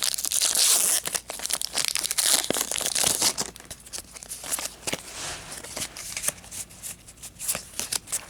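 Pokémon trading-card booster pack wrapper crinkling loudly as it is handled and opened for about three seconds, then quieter, scattered crackles and rustles as the cards are worked out of it.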